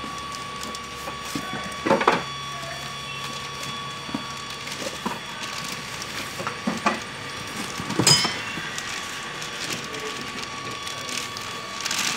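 Cardboard boxes and plastic packaging being handled: a few sharp knocks of cardboard on a table, the clearest about two seconds and eight seconds in, then plastic bag rustling near the end.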